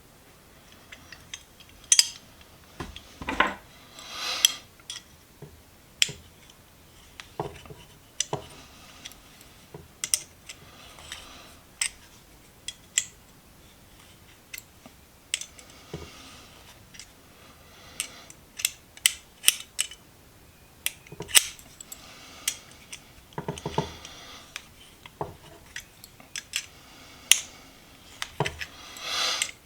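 Steel slip-joint pliers being reassembled by hand: irregular sharp metal clicks and clinks of the halves and pivot, with a few short rattling scrapes.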